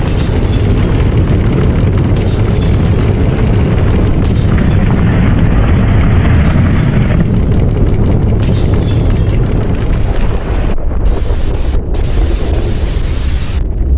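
Simulated earthquake shaking: a loud, continuous deep rumble, with a brighter rattling layer cutting in about every two seconds.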